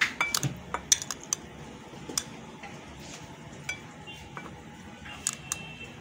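A metal spoon clinking and tapping against glassware while beaten egg is spooned over dough balls. The taps are irregular, bunched in the first second and a half with a few more later, and some of them ring briefly.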